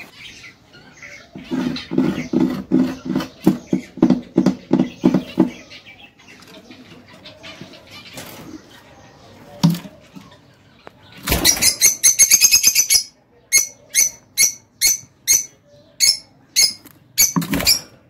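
Lovebirds calling: a quick run of sharp, shrill chirps about eleven seconds in, then single shrill chirps about twice a second. Earlier, a rhythmic run of low pulses of unclear source.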